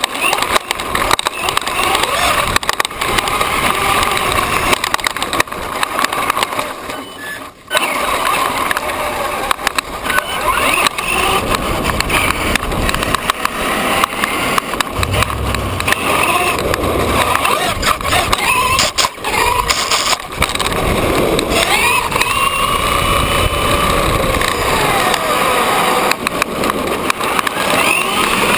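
A brushless Traxxas E-Revo RC truck driving, heard up close from a camera mounted on the truck: the tyres and chassis rattle and rasp over grass and then rough asphalt. The motor's high whine rises and falls with the throttle, most plainly in the last several seconds.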